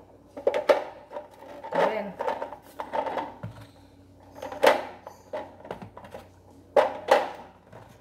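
Eggs being set into a clear acrylic refrigerator egg organiser: several sharp knocks and clicks of shell on hard plastic, the loudest in the second half.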